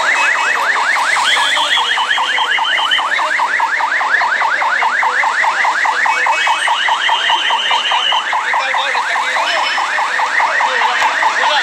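An electronic alarm sounding without a break: a rapid warbling chirp that sweeps down in pitch about six times a second. A higher steady tone cuts in briefly twice.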